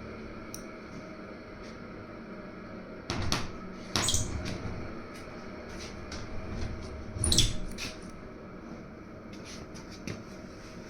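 A few knocks and clatters, loudest about three, four and seven seconds in, with smaller ticks between, over a steady low hum.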